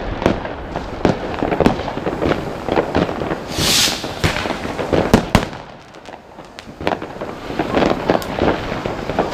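Fireworks and firecrackers going off, a dense run of overlapping bangs and cracks. A hissing burst comes a little before four seconds in, and the bangs thin out briefly around six seconds before picking up again.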